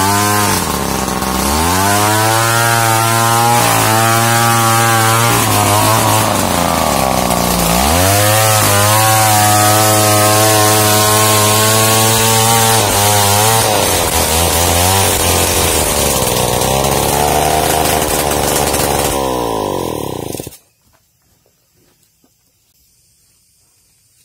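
Large two-stroke chainsaw ripping lengthwise through a timber beam to mill a plank. It runs at high revs, and its pitch drops briefly several times as it bogs under load. About twenty seconds in the engine is switched off and the sound stops suddenly.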